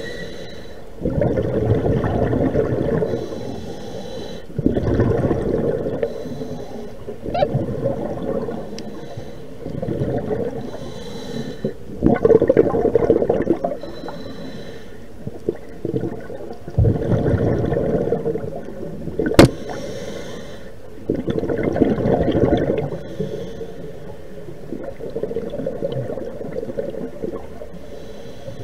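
A scuba diver breathing through a regulator, heard underwater. About every four to five seconds an exhaled rush of bubbles comes, with a fainter hiss between breaths. One sharp click sounds about two-thirds of the way through.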